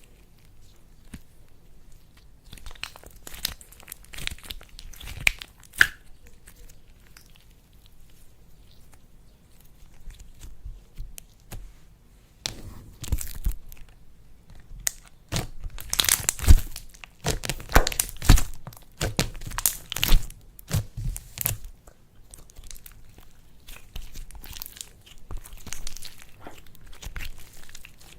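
Hands working slime, with irregular crackling, crunchy clicks: sparse at first, dense and louder in the middle, then thinning out again.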